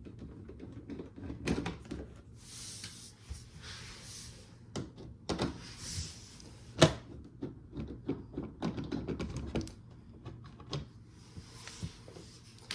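Irregular clicks, taps and scrapes of a tool working the 1/4-inch screws out of a dishwasher's lower cover panel, with one sharp knock about seven seconds in.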